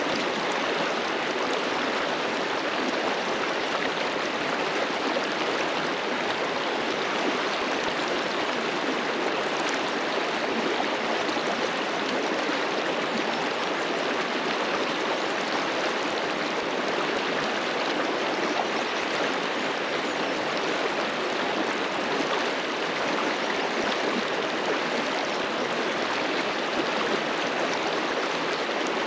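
Fast-flowing mountain river rushing and splashing over rocks in a steady, even roar of water.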